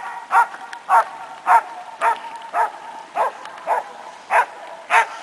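A dog barking repeatedly in a steady rhythm, about two barks a second.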